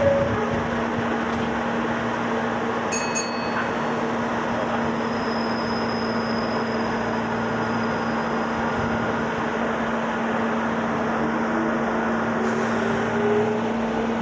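Meitetsu 6000 series resistance-controlled electric train running, heard on board: a steady rumble with a constant hum, a sharp click about three seconds in, and a tone rising near the end.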